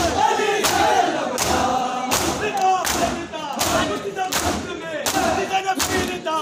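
Crowd of men doing matam, slapping their bare chests in unison. The loud strikes come at a steady beat of a little more than one a second, with the group chanting a noha between them.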